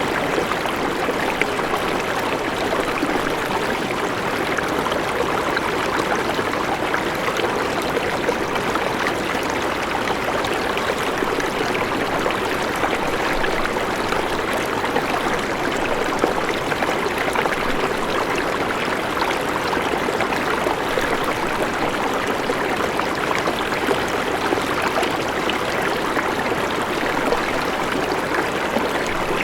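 River water flowing over rocks: a steady, even rush with a fine texture of trickles and splashes.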